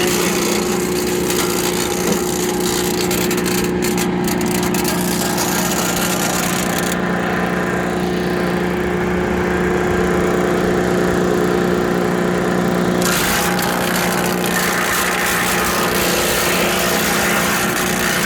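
Tractor engine running steadily under load, driving a Land Pride WC1503 PTO wood chipper. The harsher high-pitched noise drops out for about six seconds in the middle, then comes back.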